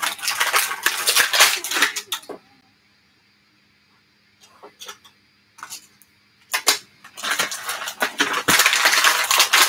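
Clear plastic toy packaging crinkling and rustling as it is handled, mixed with small plastic toy pieces clicking and clattering on a tabletop. The handling stops for a couple of seconds about a third of the way in, with a few light clicks, then resumes and runs on busily.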